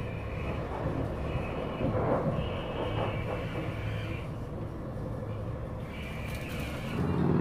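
Passenger train cabin while running: a steady low rumble from the wheels on the track, with a high-pitched whine that comes and goes several times.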